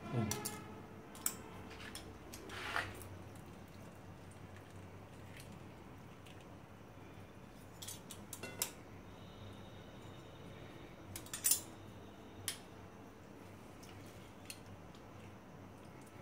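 Hinged metal hand lemon squeezer clicking and clacking as lemons are squeezed, with a few scattered clinks of metal utensils. The clicks come singly, several seconds apart, and the loudest is a quick double click about three quarters of the way through.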